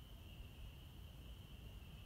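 Faint, steady high-pitched chorus of crickets, over a low background rumble.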